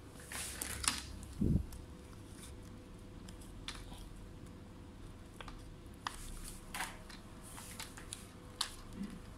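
A plastic playing card slid under a laptop's plastic screen bezel to pry it off: scattered light clicks and short scrapes as the bezel's edge and clips work loose, with one dull thump about a second and a half in.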